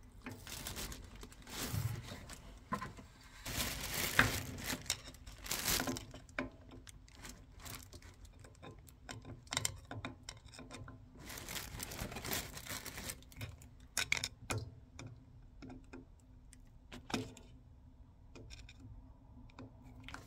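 Hands working on a boiler: an irregular string of clicks, taps and rustling as tools and small parts are handled, over a faint steady low hum.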